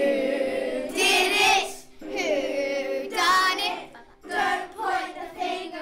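A group of children singing a song together, with long held notes.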